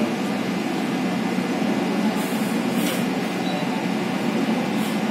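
Steady hum of wall-mounted split air conditioners, with a few brief faint rustles about two to three seconds in and again near the end.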